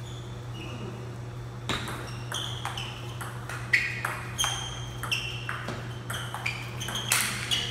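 Table tennis rally: the celluloid ball pinging off the rubber bats and the table in quick alternation, a hit every half second or so, starting about two seconds in. A steady low hum lies underneath.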